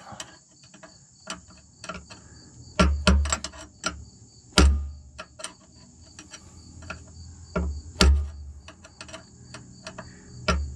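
Hammer tapping the end of a screwdriver held against a Ram ProMaster's rear factory jounce bumper, in irregular taps with a few heavier blows, to break the threaded bumper free so it can be spun off.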